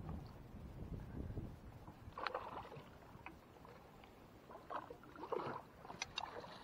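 Low wind-like rumble on the microphone with scattered knocks and rustles of gear being handled aboard a small fishing boat, the loudest about two seconds in and again past the five-second mark.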